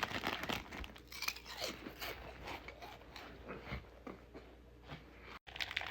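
Someone biting and chewing crunchy food, a run of irregular crunches.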